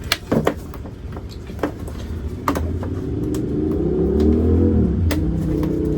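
A vehicle engine revs up, its pitch climbing, dropping briefly about five seconds in and climbing again, over a steady low hum. Sharp clicks and knocks in the first few seconds come from work on the truck's door panel.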